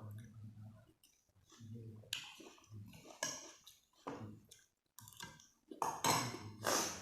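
Close-miked chewing and eating sounds, coming in irregular bursts, the loudest near the end.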